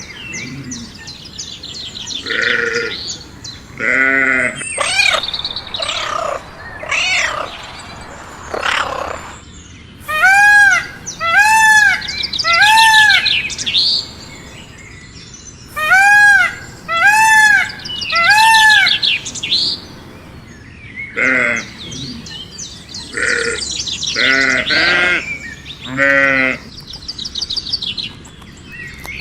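Animal calls, mostly bleats: several quavering cries near the start and end, and in the middle two runs of three short, arching calls.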